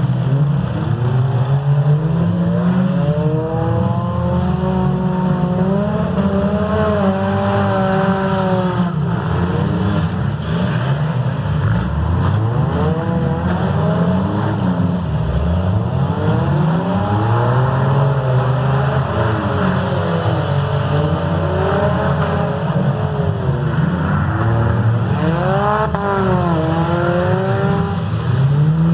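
Engines of several demolition derby cars revving up and down as they drive and ram each other on a dirt track: a loud, continuous rumble with pitch rising and falling again and again.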